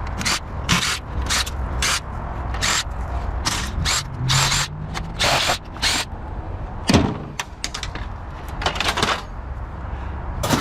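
A ratcheting hand tool clicking in a run of short strokes as screws are backed out of a printer's frame. The strokes come about twice a second at first and turn sparser and more irregular in the second half.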